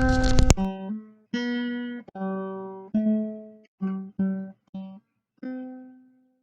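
Background music: single plucked guitar notes, each ringing and fading, with short gaps between. Noisy outdoor sound under the music cuts off about half a second in.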